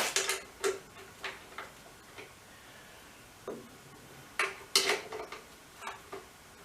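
Irregular metallic clicks and clinks of a wrench working a bolt, many with a short ring. The loudest cluster comes about four and a half to five seconds in.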